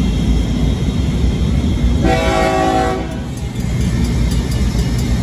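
Diesel locomotive horn sounding one blast of about a second, about two seconds in, over a steady low rumble.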